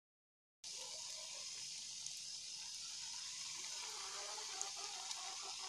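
Hot cooking oil sizzling steadily around breadcrumb-coated tempeh nuggets frying in a pan, with a few faint pops. The sizzle starts abruptly under a second in.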